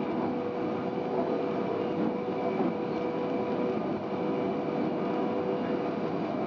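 Stadler GTW 2/6 railcar running at speed, heard from the cab: a steady wheel-and-track running noise with a constant hum through it.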